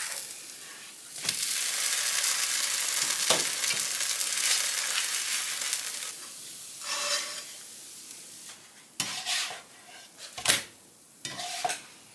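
Thin carrot-and-oat arepas frying in a non-stick pan: a steady sizzle that starts about a second in and fades after about six seconds. Near the end come several sharp clicks and knocks from a spatula against the pans and plate.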